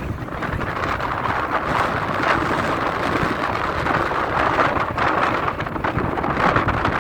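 Wind buffeting the microphone on an exposed ridge: a steady, loud rushing with a low rumble underneath.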